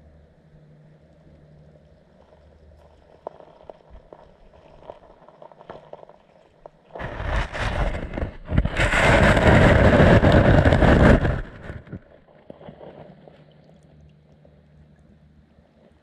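Underwater sound of shallow, pebbly sea water: faint water movement with small scattered clicks, then about seven seconds in a loud rushing surge of churning water that lasts about five seconds before dying back down.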